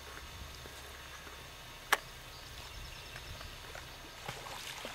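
Faint outdoor background with small scattered ticks and rustles, broken by a single sharp click about two seconds in.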